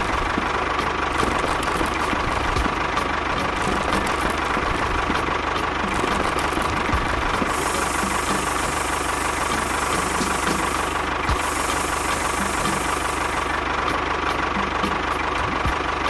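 Small motor of a miniature DIY tractor running steadily, a rough mechanical rattle under a constant high hum.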